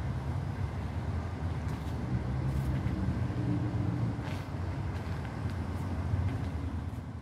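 Steady low rumble of city traffic, with a few faint ticks over it.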